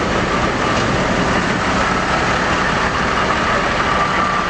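Fire engine's diesel engine idling steadily, a constant low rumble; a thin steady whine joins in about halfway through.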